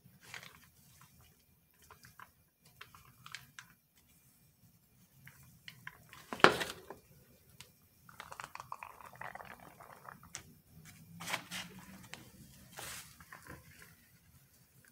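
Handling noises at a soap-making bench: scattered light clicks and taps, one sharp knock about six and a half seconds in, and a couple of seconds of soft rustling a little after, with another cluster of clicks near the end.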